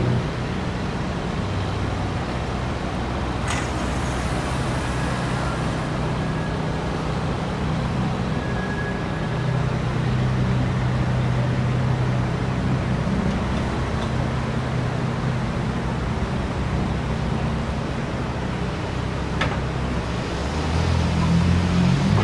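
City street traffic: a steady low hum of vehicle engines running close by, with two short sharp clicks. Near the end an engine rises in pitch as a vehicle pulls away.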